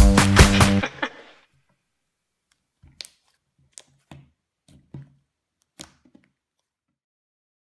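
Background pop music with a steady beat that cuts off about a second in, followed by near silence broken by a few faint clicks.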